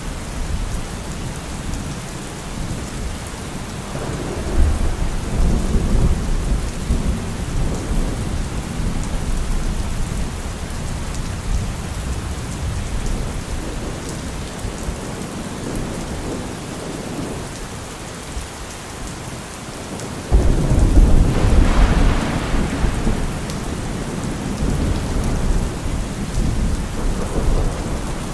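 Heavy rain falling steadily through a thunderstorm. Thunder rumbles low from about four seconds in. About twenty seconds in, a sudden louder thunderclap rolls on and fades over several seconds.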